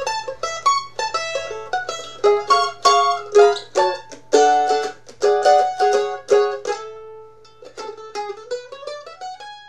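Mandolin played solo with a pick: a brisk rag tune of quick plucked notes and chords. About seven seconds in it holds one note, then a quieter run of notes climbs upward near the end. A faint steady low hum sits underneath.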